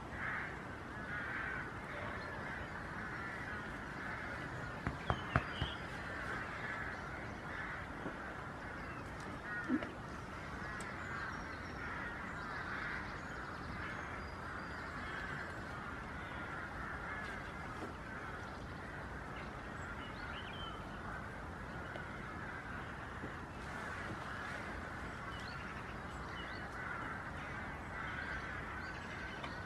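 Continuous chatter of a large flock of birds calling all at once, with crow-like calls. Three sharp knocks come about five seconds in, and a single thump near ten seconds.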